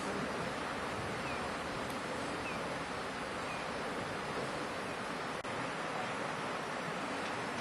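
Steady rush of the River Spey's flowing water.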